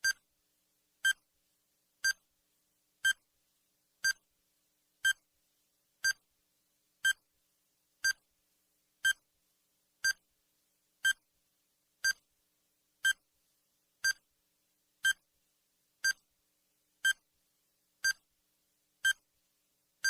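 Countdown timer sound effect: a short electronic beep once a second, evenly spaced, with silence between the beeps.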